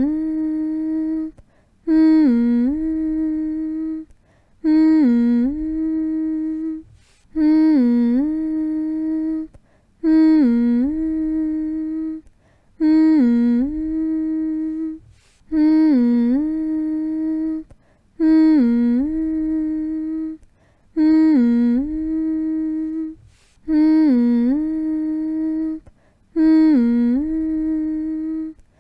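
A person humming the same short phrase over and over, about every two and a half seconds. Each phrase starts with a quick dip and rise in pitch, then holds one steady note for about two seconds before a brief break.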